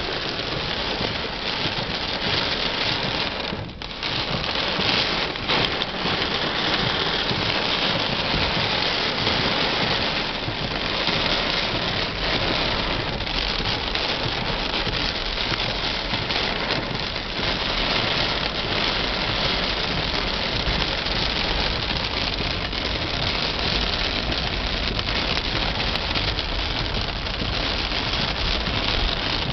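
Heavy rain falling, a steady dense hiss, with a short lull about four seconds in.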